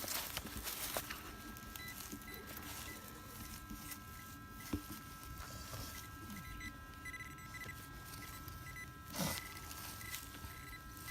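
Metal detector giving a faint, steady electronic tone of several pitches over a target being dug, starting about a second in, with a sharp click near the middle and a brief scrape or swish near the end.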